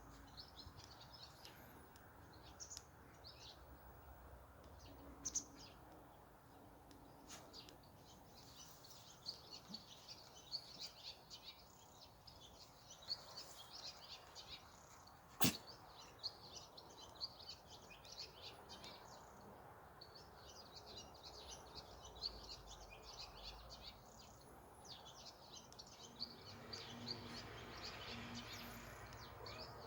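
Faint, dense chirping of small birds, with a low background hum. A single sharp click sounds about halfway through.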